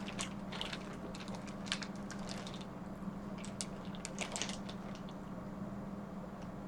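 Scattered small clicks and crackles of snow crab leg shells being broken open, busiest about three and a half to four and a half seconds in, over a steady low hum.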